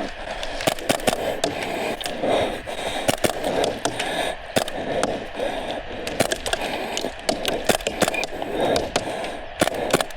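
Scattered sharp cracks of airsoft guns firing during a game, irregular and at varying distances, over rustling movement noise.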